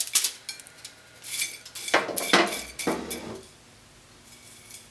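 Kitchenware clatter as roasted pumpkin seeds are tipped from a foil-lined metal baking sheet onto a ceramic plate: light clicks of the dry seeds, then several sharp knocks of metal and plate between about two and three seconds in.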